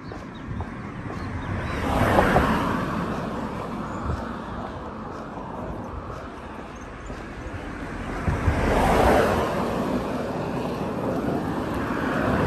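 Cars passing close by on a narrow road, their tyre and engine noise swelling and fading away: one about two seconds in, another about nine seconds in, and a third building near the end.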